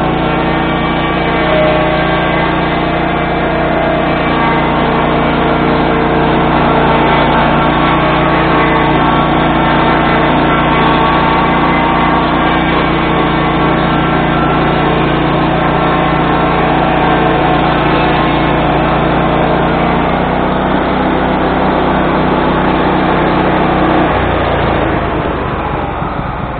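Swing blade sawmill engine running at steady high speed while its circular blade cuts along a log. The sound changes about 24 seconds in as the cut finishes, and the level drops off right at the end.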